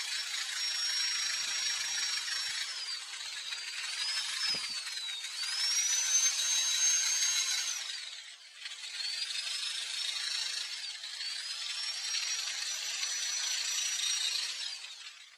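Electric drill spinning a sanding pad against an oiled wooden hook, buffing off excess linseed oil. The motor's high whine rises and falls in pitch as its speed changes, drops out briefly about eight seconds in, then runs again.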